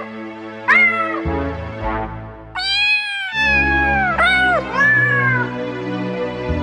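Cat meows set to music: a string of about five or six meows, each rising then falling in pitch, over a backing of held low notes.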